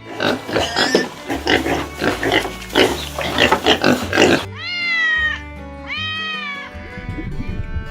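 Animal calls over background music: about four seconds of rough, noisy calls in quick bursts, then two drawn-out calls that rise and then fall in pitch.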